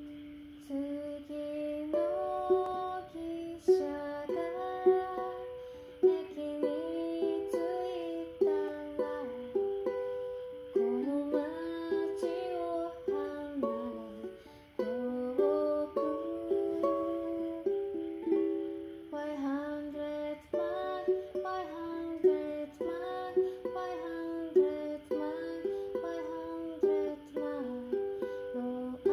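Solo ukulele playing a fingerpicked melody over chords, each note plucked sharply and fading.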